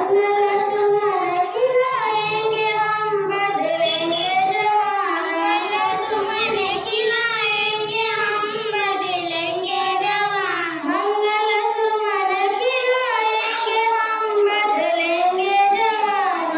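Young girls singing a Hindi devotional-patriotic song together into microphones, in continuous phrases.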